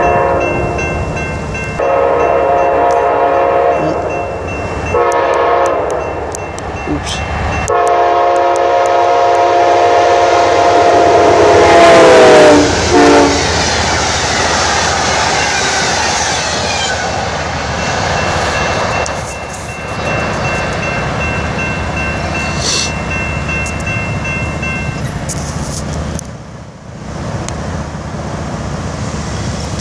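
Locomotive air horn sounding the long-long-short-long crossing signal as the train approaches. The last long blast is the loudest and drops in pitch as the locomotive passes, then the train rolls by with loud rail noise and a steady high-pitched squeal for several seconds.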